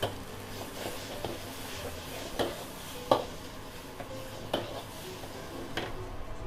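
Metal ladle scraping and clanking against a wok while rice noodles are stir-fried, with about five sharp clanks, the loudest about three seconds in. A steady low hum runs underneath.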